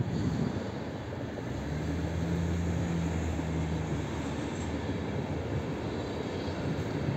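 Red double-deck Aeroexpress electric train, an ESh2 Stadler KISS, running past: a steady rumble of wheels on rails, with a low hum from about two to four seconds in.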